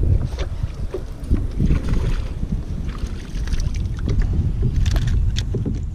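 Wind rumbling on the action camera's microphone, with scattered splashes and knocks as a hooked bass is fought and swung out of the water into a kayak.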